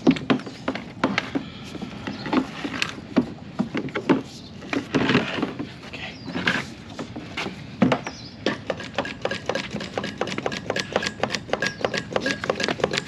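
Irregular clicking, knocking and rubbing from a fuel siphon pump and its hose being handled and worked at a fuel tank, the clicks coming faster in the second half, with a faint steady whine in the last few seconds.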